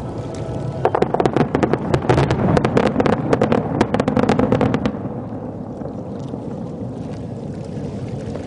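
Fireworks crackling: a dense run of rapid small pops about a second in that stops about five seconds in, leaving a lower steady rumble.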